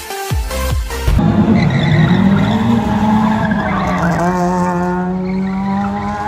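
A car doing burnout donuts: the engine is held at steady high revs while the spinning tyres squeal and skid on the pavement. This follows about a second of electronic music at the start.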